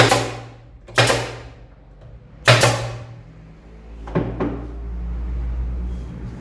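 Pin nailer driving pins into a glued MDF subwoofer box: four sharp shots, each with a short ringing tail, the last one weaker. A steady low hum rises after the last shot.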